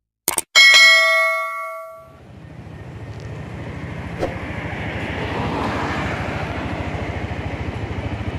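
Subscribe-button animation sound effect: a mouse click followed by a bright bell ding that rings out over about a second and a half. Then, from about two seconds in, a vehicle engine runs with a fast, even low pulse that slowly grows louder.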